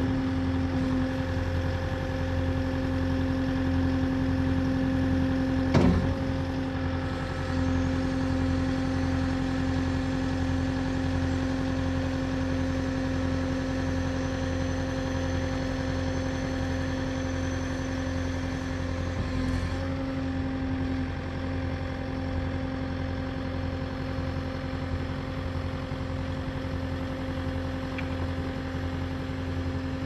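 Kubota SSV65 skid steer's diesel engine running at a steady speed while the hydraulics lift and lower the loader arms and bucket. One sharp knock comes about six seconds in.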